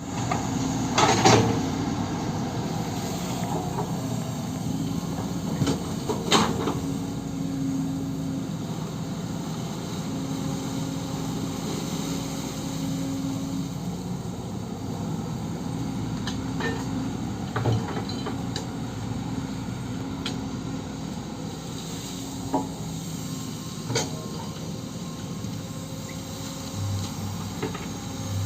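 Kobelco SK-130 hydraulic excavator engine running steadily while it digs, with a few sharp knocks scattered through.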